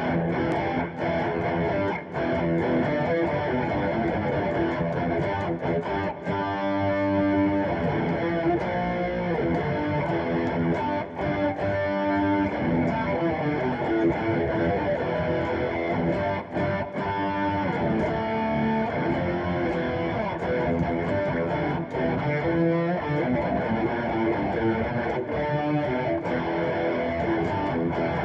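Electric guitar played through an amplifier with distortion, strummed chords mixed with single notes, going on without a break.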